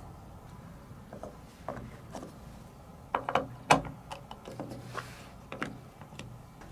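Marbles rolling down a plastic TrixTrack wave-slope marble run, clicking and clattering irregularly against the track, with the sharpest clicks about three to four seconds in.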